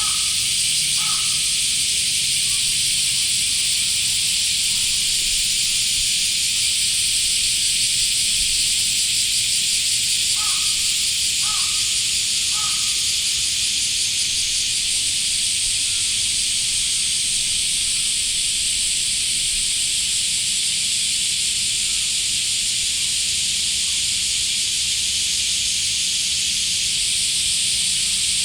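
Dense summer cicada chorus, a loud steady shrill buzz, with a crow cawing a few times, three caws in a row about ten seconds in.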